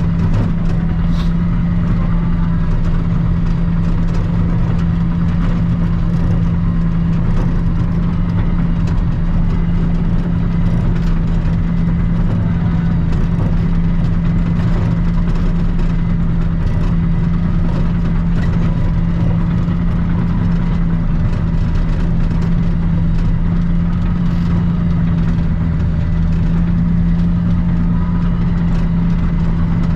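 Diesel engine of a Cat D7 Next Gen bulldozer running steadily at an even speed while it pushes snow, a constant low drone with no change in revs.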